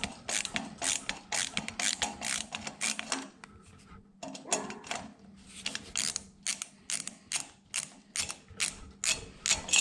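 Klein 15-in-1 multi-bit ratcheting screwdriver clicking as it is worked back and forth on a screw in an aluminium wing spar, about three ratchet clicks a second, with a pause of about a second a little past three seconds in.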